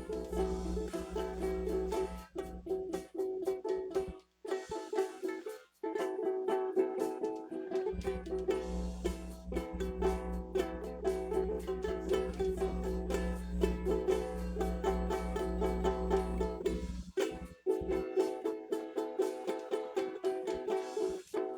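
Acoustic guitar strummed and picked rapidly, with short breaks about four and six seconds in and again near the end. A steady low hum runs under much of it.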